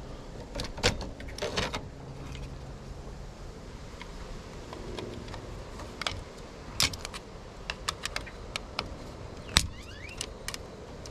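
Irregular clicks and light plastic-and-metal clatter from working an old Zinsco circuit breaker out of its panel, with a screwdriver turning the breaker's small terminal screw. The sharpest clicks come about a second in and near the end.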